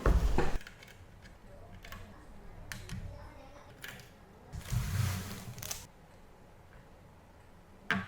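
Handling of computer parts during a PC assembly: a loud knock-and-rustle at the start, a few sharp clicks, then a rustling swell about halfway through that ends in a sharp click.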